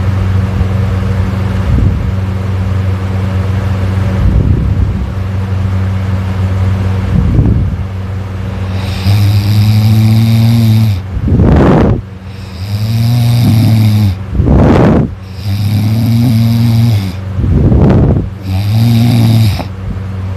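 A person snoring loudly: from about nine seconds in, a long buzzing snore on each breath, with a short sharp breath between, repeating about every three seconds. Before that there is a steadier low hum with fainter breaths.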